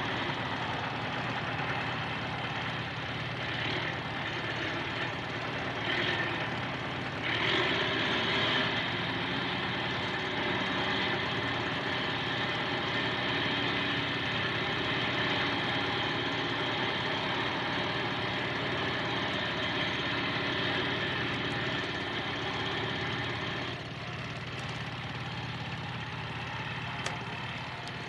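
Construction-site machinery sound: an engine running steadily with a low hum. It grows a little louder about seven seconds in and eases off a little near the end.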